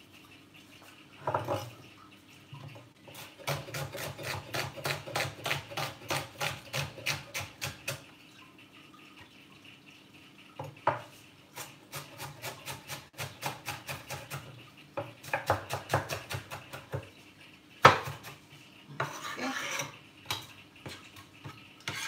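Kitchen knife chopping red onion on a cutting board, in quick runs of strokes about four a second, with one loud knock near the end.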